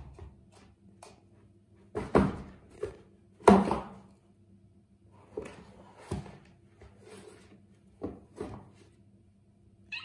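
Cardboard boxes knocked, pushed and scraped on a rug by a playing Bengal kitten: a string of irregular thuds and knocks, the loudest about two and three and a half seconds in.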